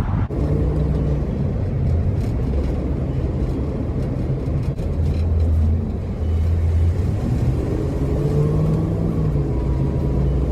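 A car driving along: a steady low engine and road hum, its pitch shifting a little near the end.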